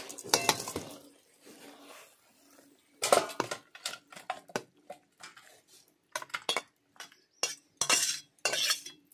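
Metal spatula scraping and knocking against a metal wok and a steel serving bowl as cooked chicken curry is scooped out, in irregular strokes, the loudest about three seconds in.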